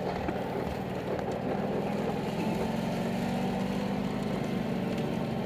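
Car engine running steadily under load while driving over a rough dirt track, heard from inside the cabin, its note rising a little about halfway through.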